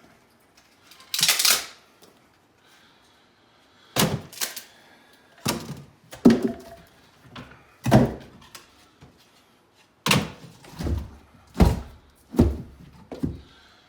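Split firewood pieces being handled and set onto a woodpile: a brief scrape about a second in, then a series of about ten irregular wooden thunks as logs knock against the stack.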